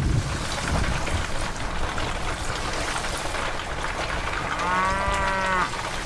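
Steady rain falling, with a single cow moo lasting about a second near the end.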